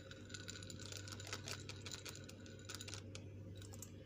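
Chocolate chips being poured in: a run of faint, quick, scattered clicks and taps.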